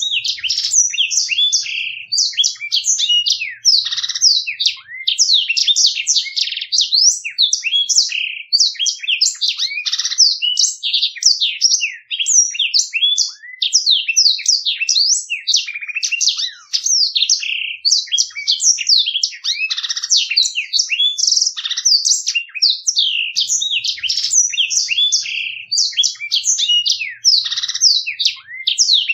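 Blackthroat (black-throated canary) singing a fast, unbroken rolling song of rapid high twittering and trilled notes. It starts suddenly out of silence.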